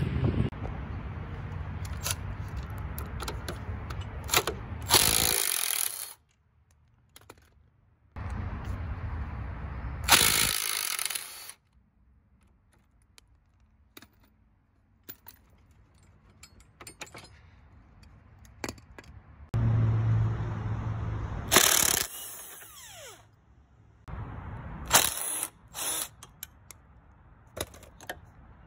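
Power tool running in several separate bursts of a few seconds each, with sharp metal clicks and stretches of near quiet between.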